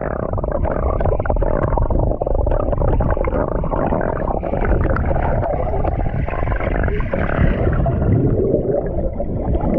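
Water churning and splashing in a makeshift tarp swimming pool as people swim in it, a continuous low rumbling wash close to the microphone with no pauses.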